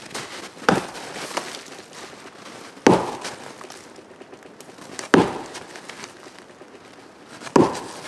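Axe striking the trunk of a standing dead tree: four sharp blows a little over two seconds apart. The blows are a soundness test, shaking the tree so the cracked top can be seen to sway: the sign of a widowmaker.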